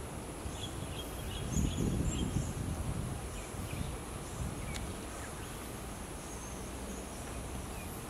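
Outdoor ambience: a steady hiss of insects with faint, scattered high bird chirps, and a low rumble that swells about one and a half seconds in and fades by about three seconds.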